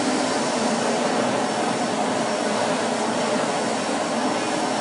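Vacuum cleaner running steadily: an even rushing hiss with a faint high whine.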